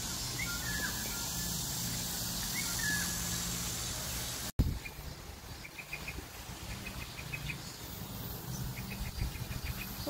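Outdoor ambience of birds chirping over a steady high hiss. About halfway through there is a sudden cut, then short runs of quick repeated chirps.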